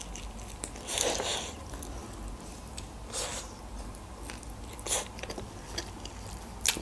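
Close-miked eating of grilled chicken: soft bites and chewing, heard as a few short mouth sounds about every two seconds.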